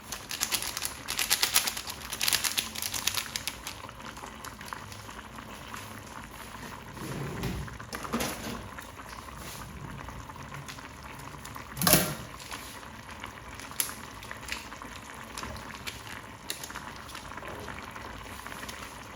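Stock-based sauce bubbling in a cooking pot on the stove. It crackles and spatters densely for the first few seconds, then settles to a steady bubbling. One sharp knock comes about twelve seconds in.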